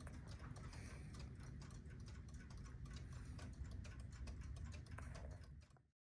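Mechanical clock ticking faintly and evenly, cut off abruptly near the end.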